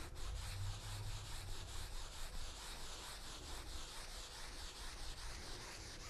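A wide 2-inch paint brush swishing lightly across an oil-painted canvas in repeated strokes, blending and softening the wet background colours. Faint.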